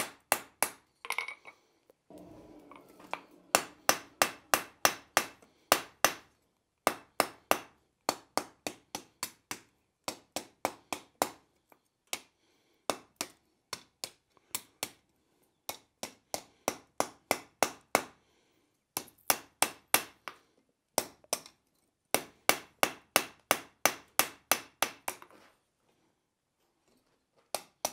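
Hand hammer striking red-hot steel bar stock on an anvil, flattening and widening the ends of the stand's legs. Runs of sharp, ringing blows come about three to four a second, with short pauses between runs. The blows stop a couple of seconds before the end.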